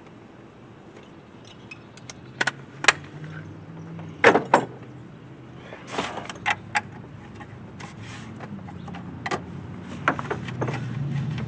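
Hand tools clinking and knocking against metal parts during engine-bay disassembly: scattered sharp clicks and taps, with the loudest close pairs about two and a half and four and a half seconds in.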